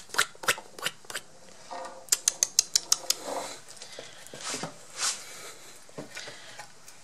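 A series of sharp clicks: a few scattered ones at first, then a fast, even run of about eight in under a second, followed by softer scuffs and small noises.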